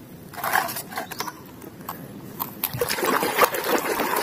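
A few knocks of plastic toys against each other in a plastic basket as one is picked out. From about three seconds in, water splashes and sloshes as a toy is swished through muddy water.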